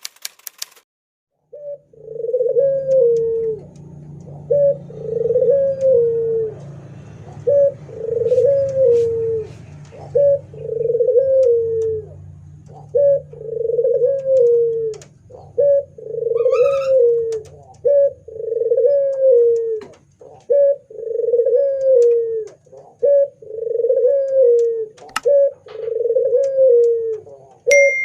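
Puter dove (domesticated ringneck dove) cooing over and over, about a dozen coos spaced roughly two seconds apart. Each coo is a short note followed by a longer falling phrase.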